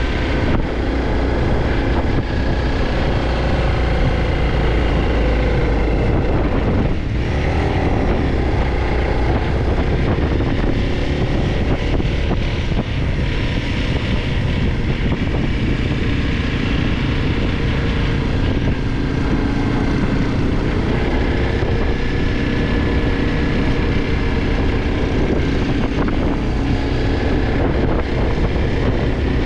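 Single-cylinder dual-sport dirt bike engine running under way, its pitch rising and falling with the throttle, with wind rushing over the microphone.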